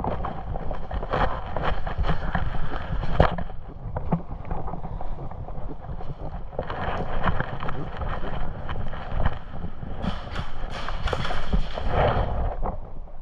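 Steady rumbling wind and handling noise on the microphone during an airsoft game, with scattered sharp clicks and snaps over it.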